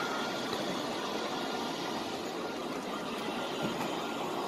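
Steady, even hubbub of a very large crowd of pilgrims, with no single voice standing out.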